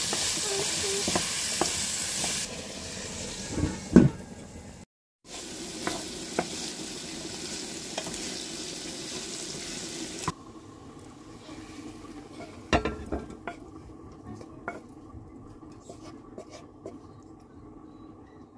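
Vegetables sizzling as they fry in a nonstick pan, stirred with a wooden spatula that scrapes and knocks against the pan. About ten seconds in, the sizzle cuts off, leaving only occasional light clicks and taps.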